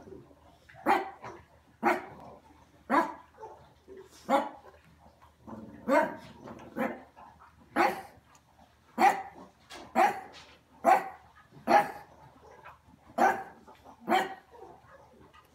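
Pug barking repeatedly at the glass door, single sharp barks about once a second: territorial alarm barking at something outside.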